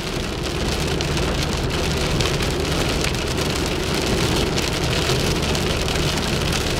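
Steady rain falling on a moving car, heard from inside, over the constant low hum of the engine and tyres on the wet road.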